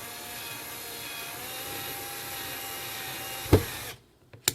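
Cordless drill/driver running steadily for about four seconds, driving a bridge mounting screw into a bass guitar body, with a sharp click just before it stops.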